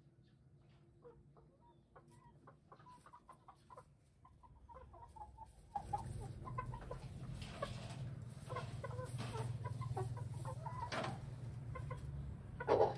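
Hens pecking feed from a plastic feeder pan, a run of soft quick ticks. At about six seconds domestic chickens start clucking over a steady low hum, and a brief louder sound comes near the end.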